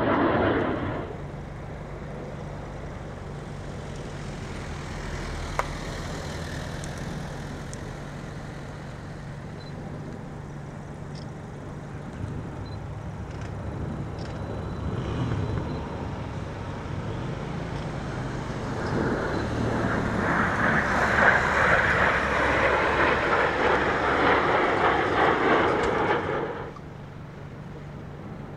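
Jet aircraft flying in formation overhead, their engine noise a distant rush that swells about two-thirds of the way through and drops away sharply near the end, over a steady low hum.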